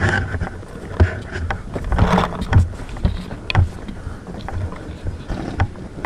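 Irregular sharp knocks and pops, roughly one a second, over a low wind rumble on the microphone.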